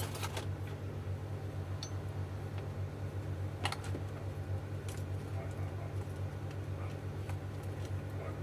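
Scattered light clicks and taps of hand work on a plastic e-bike battery casing as it is worked at to open it, over a steady low hum.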